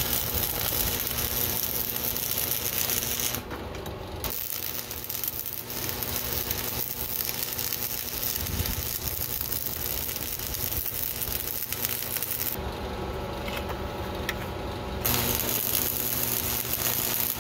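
Stick (arc) welding on steel: the electrode's arc crackling and sizzling steadily as a bead is laid. The crackle drops out twice, briefly about three and a half seconds in and for a couple of seconds after twelve seconds, when the arc goes out.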